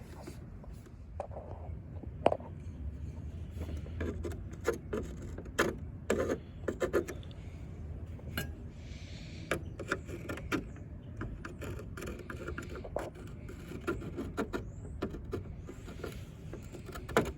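Plastic pieces of an SN95 Mustang center console being handled and fitted together: scattered clicks, knocks and scrapes of hard plastic, with no steady rhythm.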